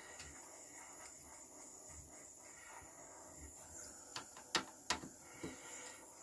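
Faint steady hiss of a small flame from a pen-style gas micro torch melting PLA plastic. A few light clicks and taps come between about four and five and a half seconds in.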